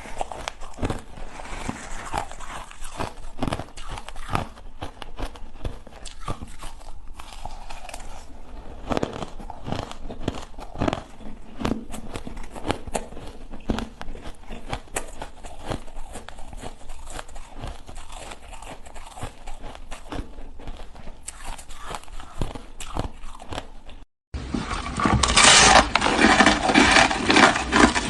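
Ice being bitten and chewed close to the microphone: a steady run of sharp, irregular crunches and cracks. About 24 seconds in it cuts abruptly to louder, denser crunching.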